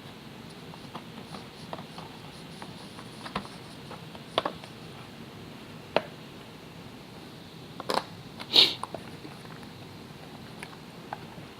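Scattered light clicks and taps of a tabletop terrain building kit's parts being handled and fitted together, with a louder clatter and a short crunching rattle about eight seconds in.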